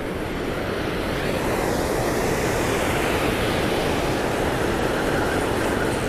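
Steady rush of river water pouring over a low concrete dam, with wind buffeting the microphone.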